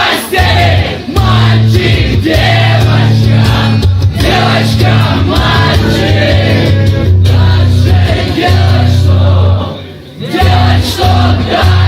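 Live acoustic rock song: singing with guitar accompaniment and a steady low bass, many voices joining in like a crowd singing along. The music drops away briefly about ten seconds in.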